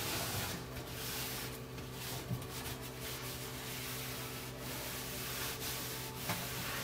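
A stove being scrubbed: a continuous rubbing noise that swells and eases, over a faint steady hum.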